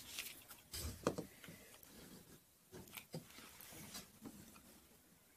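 Faint handling sounds of a hot glue gun being worked over wooden paint-stirring sticks: a few light clicks and taps, the strongest about a second in.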